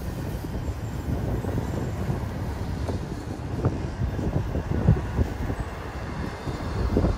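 A Union Pacific intermodal train's double-stack container well cars rolling past at close range: a steady low rumble with irregular sharp clacks from the wheels on the rails.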